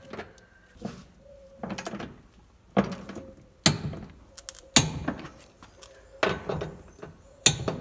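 Torque wrench ratcheting as it tightens seat-base bolts into the car's floor, a sharp metallic click-clunk with each stroke, about once a second.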